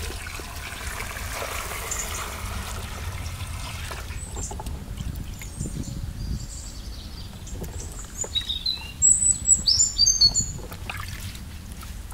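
Water poured from a metal pail into a large aluminium pot of vegetables, a steady rush for about four seconds, followed by quieter splashing as cucumbers and carrots are washed in the water by hand. About eight seconds in, a bird calls a quick run of short high chirps, the loudest sound here.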